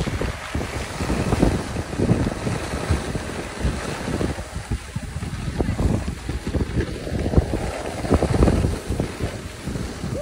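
Wind buffeting a phone microphone in uneven gusts as the camera moves down a ski slope, over the hiss of skis sliding on packed snow.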